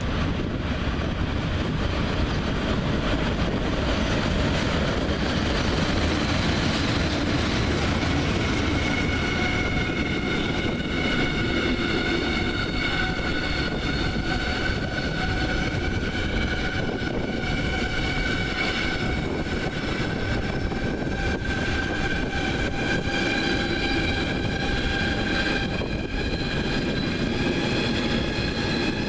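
Train running through a station: a steady rolling rumble of wheels on rail. A set of high whining tones comes in about a third of the way through and slowly rises in pitch.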